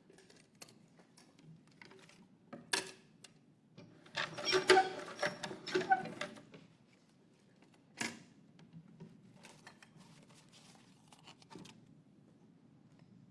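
Wooden lottery drum turned by hand, rattling and clattering for about two seconds with the paper slips inside, then a single sharp click, with faint light handling clicks around it.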